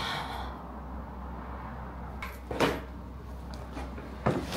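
A few short, separate knocks and bumps from suitcases and packed belongings being handled, the clearest about halfway through.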